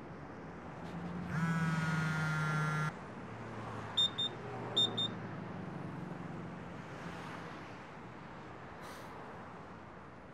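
City street ambience with a steady wash of traffic noise. About a second in, a low horn-like tone sounds for about a second and a half, and about four seconds in come two short high electronic beeps, under a second apart.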